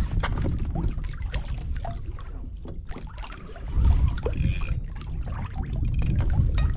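Sea water lapping and splashing against the hull of a Hobie Pro Angler 14 sit-on kayak: many small irregular slaps over a low, gusting rumble of wind on the microphone. A brief high hiss comes a little past halfway.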